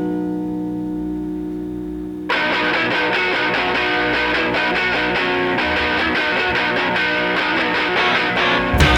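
Rock music with electric guitar: a held guitar chord rings out, then the full band comes in about two seconds in and gets louder with hard drum hits near the end.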